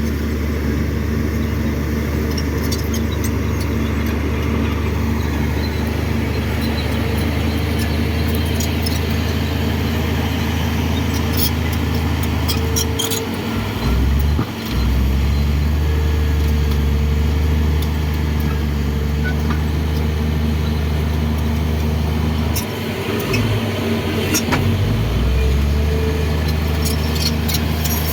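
Komatsu D58 crawler bulldozer's diesel engine running steadily under work, its pitch shifting about halfway through and again near the end. A few short metallic clanks come over it.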